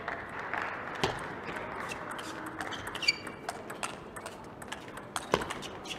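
Table tennis ball clicking off the bats and the table in an irregular run of sharp taps, over the steady hum of the arena. A brief high squeak comes about three seconds in.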